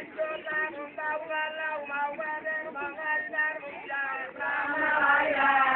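A group of voices singing an Arfak dance chant in short, repeated notes, a couple a second, growing louder about four and a half seconds in.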